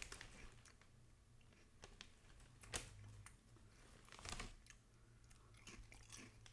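Faint crunching of a Lay's potato chip being chewed, quiet scattered crackles with two sharper crunches about two and three-quarter seconds and four and a quarter seconds in.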